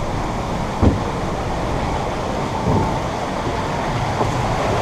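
Steady rush of water and the log boat running along the channel of a log flume ride, with a single knock about a second in.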